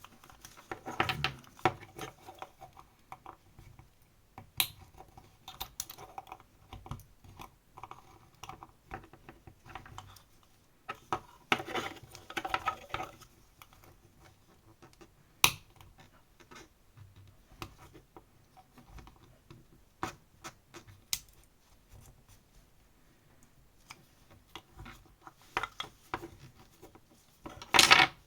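Irregular clicks, taps and scraping of a tool working on a Canon PIXMA printhead's plastic housing as it is pried open, with denser bursts about a second in, around the middle, and a louder one near the end.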